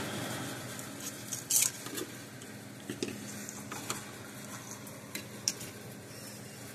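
Light clicks and taps of a spool of solder and small parts being handled on a workbench: a handful of sharp ticks, the loudest about a second and a half in, over a faint steady hum.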